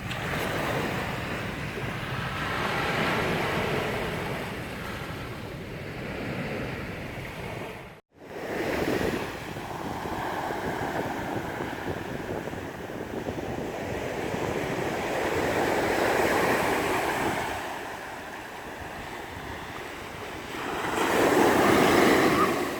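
Sea waves breaking and washing up on a beach, swelling and fading every several seconds, with wind on the microphone. The sound cuts out for a moment about eight seconds in.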